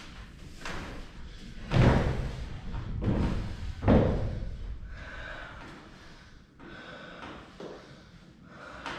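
Heavy wooden thuds as a 2x8 lumber beam is worked into place overhead: two loud ones about two seconds apart, with lighter knocks before, between and after.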